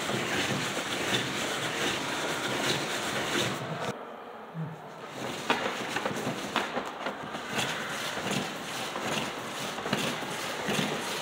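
Hand-cranked cardboard automata running: cardboard cams, shafts and followers scraping and rattling, with many scattered clicks. The rough noise thins out about four seconds in while the clicking goes on.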